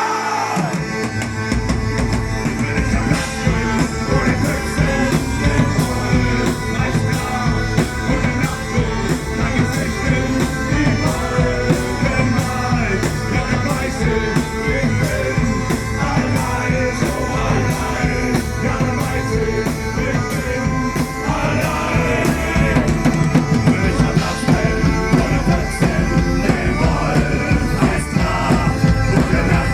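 Live medieval-rock band playing loud with a steady drum beat, instruments and singing; the bass and drums come in fully about a second in.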